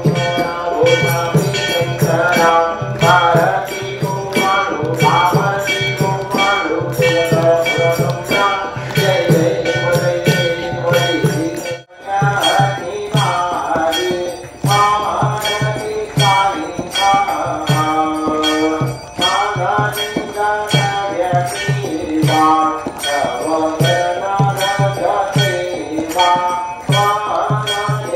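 Group devotional singing (a bhajan) with a dholak drum keeping a steady beat and bells jingling, with a brief break about twelve seconds in.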